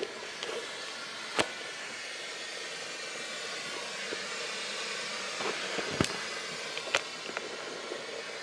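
A steady hiss with sharp clicks about a second and a half in, and again around six and seven seconds in.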